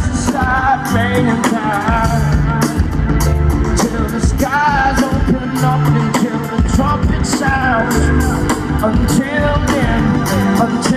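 Live band playing amplified rock music: a lead vocal over bass, guitar and a steady drum beat, heard from within the audience.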